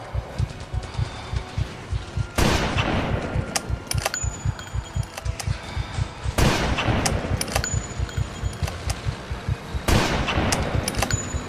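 Recreated war-film battle sound effects: rapid machine-gun fire at about five rounds a second, with three loud blasts about four seconds apart, each dying away over a second or so, and scattered sharp ticks.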